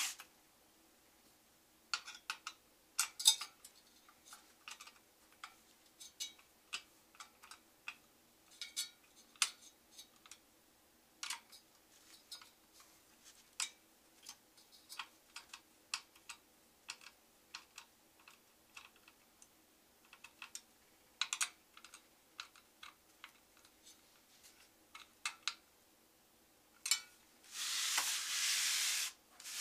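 A screwdriver driving the CPU cooler's mounting screws into the motherboard: scattered small clicks and ticks of metal on metal as the screws are tightened all the way in. Near the end comes a brief scraping rub as the motherboard is slid and turned on the wooden desk.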